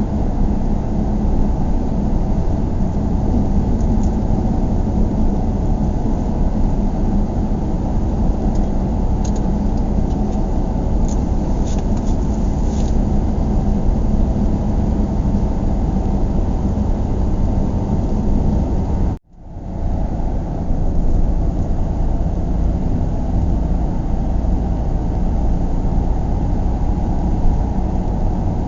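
Steady low rumble of road and engine noise heard inside a moving car. It cuts out suddenly for a moment about nineteen seconds in, then resumes.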